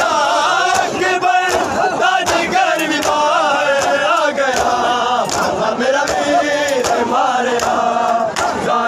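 A crowd of men chants a mourning noha together, with the loud, repeated hand slaps of matam chest-beating over the voices.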